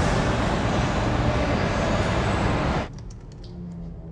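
Steady traffic noise that cuts off abruptly about three seconds in, giving way to a much quieter background with a few faint clicks.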